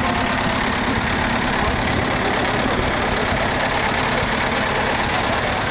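Doe 130 Triple D tandem tractor's twin Ford diesel engines running steadily.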